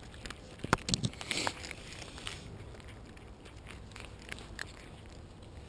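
Cats crunching dry kibble right beside the microphone, with a few loud sharp knocks about a second in.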